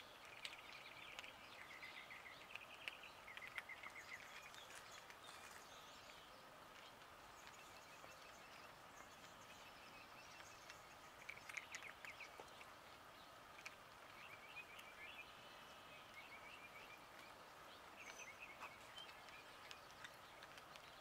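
Near silence: faint outdoor ambience with a steady faint hum and distant birds chirping in short trills every few seconds.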